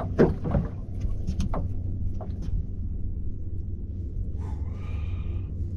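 Steady low rumble of wind on the microphone out on open water, with a few light clicks in the first couple of seconds and a brief whir about four and a half seconds in.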